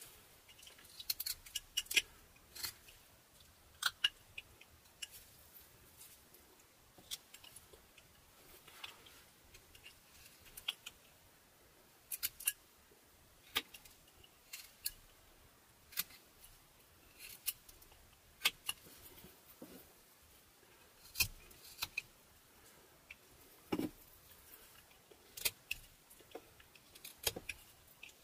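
Carving knife slicing into butternut wood in short, crisp cuts that come irregularly, about one or two a second.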